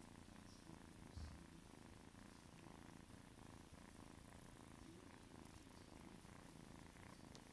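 A silver mackerel-tabby RagaMuffin kitten purring faintly and steadily while being stroked on the head, a sign of contentment, with a brief soft thump about a second in.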